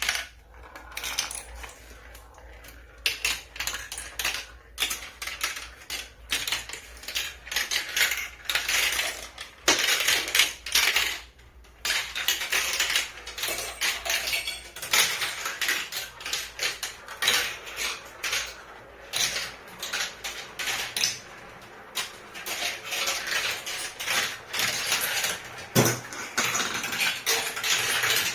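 Many glass marbles rolling and clattering through plastic marble-run tracks, with a rolling rumble and a steady stream of irregular clicks as they drop, hit and knock together.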